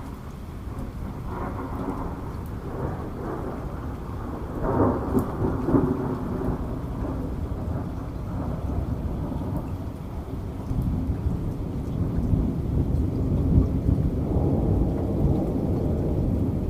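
Thunder rumbling over steady heavy rain. It swells to its loudest peal about five seconds in, eases, then builds into another long rumble in the second half.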